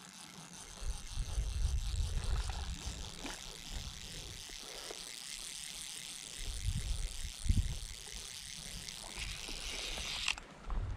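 Fly reel's click-and-pawl ratchet buzzing steadily as the spool turns, cutting off suddenly near the end, with low bumps of handling noise.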